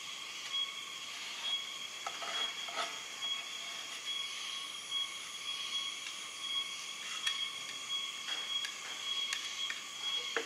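A spatula scraping and spreading white paste along the edge of a wooden board, in a few faint short strokes, over a steady high-pitched whine.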